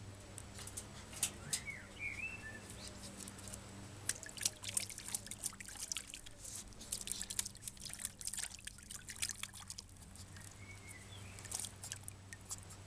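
Water in a shallow plastic crate splashing and dripping as a small papillon dog wades and dunks its muzzle in it, in scattered short splashes that come thickest in the middle. A bird chirps briefly a couple of times.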